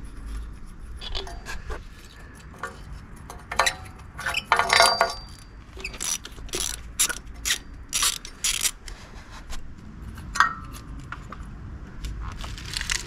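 Ratchet spanner clicking in short runs as exhaust header flange bolts are undone, with sharp metallic clinks of the tool on the bolts.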